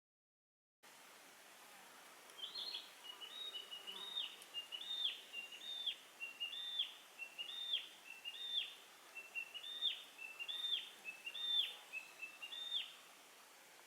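A songbird singing a short phrase over and over, about once a second: two quick notes and then a higher note that swoops down. The song runs over a steady outdoor hiss and begins after about a second of dead silence.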